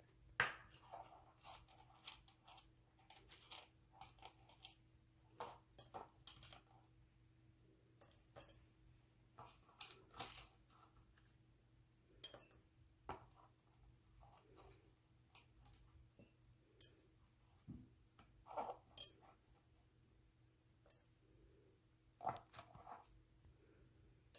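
Kitchen handling sounds as syrup ingredients are prepared: scattered light clicks, clinks and short crunches at irregular intervals, with quiet in between. The sharpest clicks come just after the start and a little past two-thirds of the way through.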